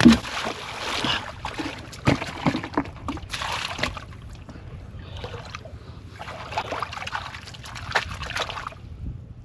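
Shallow muddy water sloshing and splashing in irregular bursts. The loudest splash comes right at the start, and it is busiest in the first four seconds.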